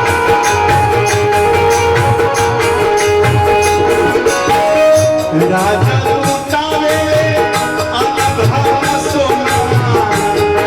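Live Indian folk-music accompaniment: held melody notes over a steady hand-drum beat with regular jingling percussion, as for a Bhojpuri sohar.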